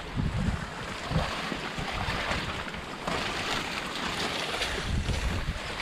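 Water sloshing and splashing as people wade through it dragging a fishing net, with wind buffeting the microphone in irregular low thumps.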